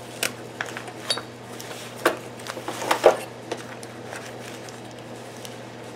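Steel carbide-tipped boring bars clinking against each other and their blue plastic holder as the holder is opened out: a series of sharp clicks and clinks over the first three and a half seconds, then quieter handling.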